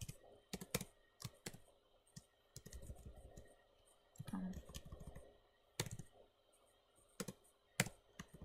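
Computer keyboard typing: irregular single keystrokes and short runs of key clicks with pauses between them, as a line of code is typed and corrected.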